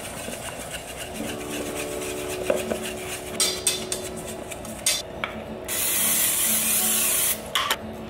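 Wire whisk scraping and rasping against a stainless steel bowl as it stirs a dry, crumbly mix of almond flour, protein powder and coconut oil. About six seconds in, a louder rush of scraping lasts about a second and a half as the crumbly mix is tipped out into a glass baking dish.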